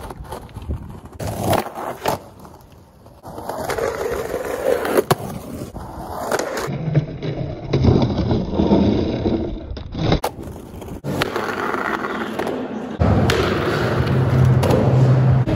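Skateboard wheels rolling on rough concrete and its trucks grinding along painted curbs in slappy grinds, with repeated sharp clacks as the board hits the curb and the ground.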